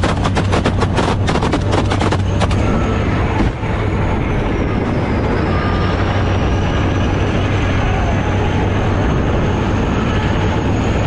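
Rapid small-arms fire, many shots in quick succession, for the first two and a half seconds as soldiers shoot at an incoming FPV drone. The shooting then gives way to a steady vehicle-like rumble with a low hum and a faint high whine.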